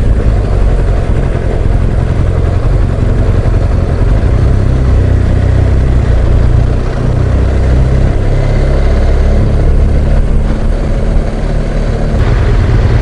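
BMW R1200GS Adventure motorcycle under way, its boxer-twin engine running steadily under a loud, even low rush of wind and road noise.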